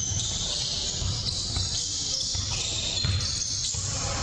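Basketball being dribbled on a hardwood gym floor: repeated low thumps, a couple a second, over a steady high hiss.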